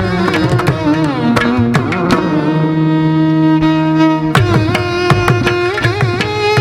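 Carnatic music ensemble playing: a melody on bowed violin over quick South Indian hand-drum strokes. About two and a half seconds in the drumming stops under one long held note, and the drums come back in near the four-and-a-half-second mark.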